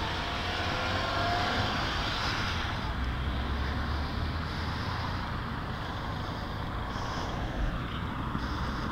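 Steady road traffic noise of cars going by on the road.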